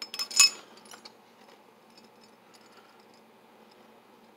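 Metal parts of a PDQ GP Series lever lockset clinking and clicking as they are handled: a quick cluster of clicks ending in a short ringing clink in the first half second, then a few faint ticks.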